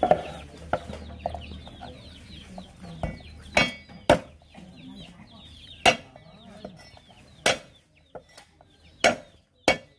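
Cleaver blade knocking on a wooden chopping board as garlic cloves are smashed: half a dozen sharp knocks, irregularly spaced, from about three and a half seconds in. Chickens cluck and cheep in the background.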